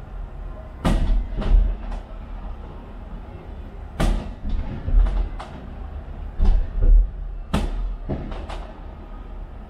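Aerial fireworks bursting, about ten sharp bangs at uneven intervals over a steady low rumble.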